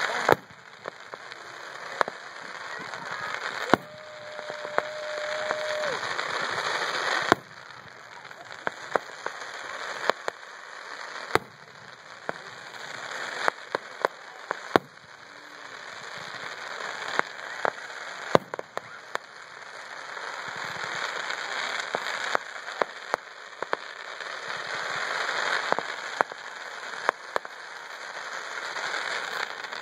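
Fireworks finale: sharp bangs of aerial shells at irregular intervals over dense crackling from crackling-star effects, the crackle swelling and then dropping away several times.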